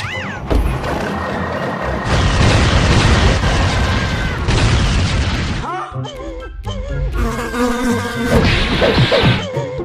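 Cartoon sound effects of a bee swarm buzzing, with a loud rushing noise through the first half and wavering, cry-like pitched sounds in the second half.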